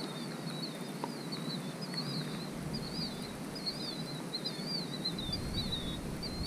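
A songbird singing a long run of quick, high twittering phrases over a steady outdoor hiss.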